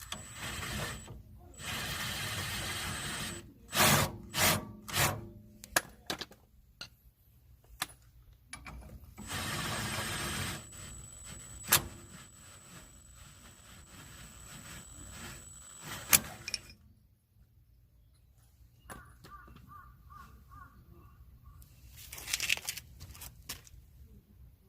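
A power tool running in two short steady bursts of a second or two, with a thin high whine. Between the bursts come several short noisy bursts and a few sharp clicks and knocks of tool work.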